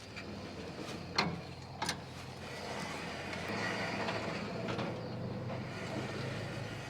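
An engine running steadily, with two sharp knocks about a second in and a second after that, and a hiss that swells in the middle.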